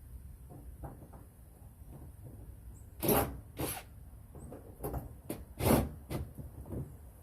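Bolts and metal suspension hardware being handled and fitted by hand: a handful of short metal scrapes and rattles, loudest about three seconds in and again near six seconds.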